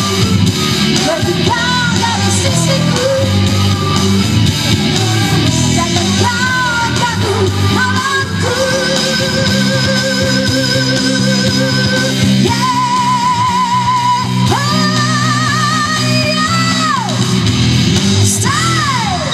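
A woman singing a song live into a microphone over a loud backing track through a PA. In the second half she holds several long notes with vibrato, at different pitches.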